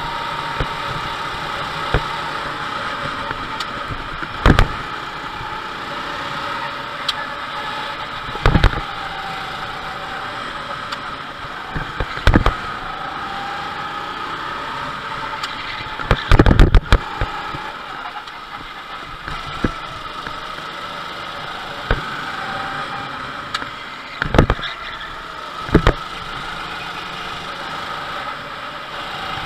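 Go-kart engine running at speed, heard from on board the kart, its pitch rising and falling as the kart goes through corners and straights. Sharp knocks come every few seconds, the loudest about halfway through.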